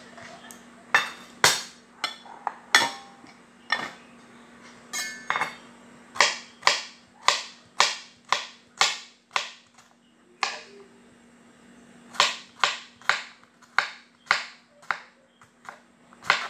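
Kitchen knife chopping cucumber on a wooden cutting board: sharp chops at about two a second, with a short pause near the middle.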